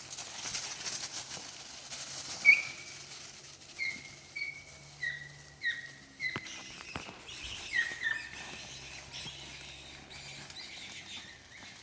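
A series of about ten short, high chirping calls, each falling slightly in pitch, repeated roughly every half second for several seconds over quiet outdoor background noise.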